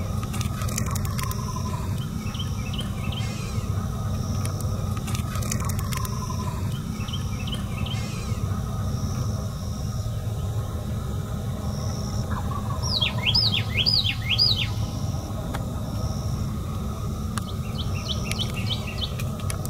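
Dawn woodland birdsong: scattered faint chirps, then a quick series of clear, sweeping whistled notes about thirteen seconds in and a softer series near the end, over a steady low background rumble.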